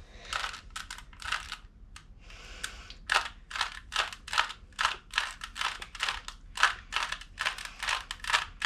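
A plastic 3x3 Rubik's cube being turned by hand, its layers clicking and clacking as each face snaps round. The clicks come sparsely at first, then about two a second from about three seconds in, as a move sequence on the right side is repeated.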